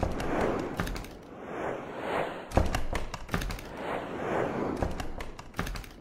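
Whoosh sound effects swelling and fading about once a second, cut by sharp hits and crackles; the loudest hit comes about two and a half seconds in.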